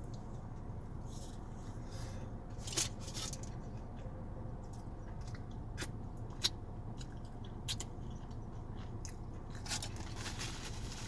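A person chewing a burrito up close, with scattered sharp wet mouth clicks and smacks over a steady low background hum.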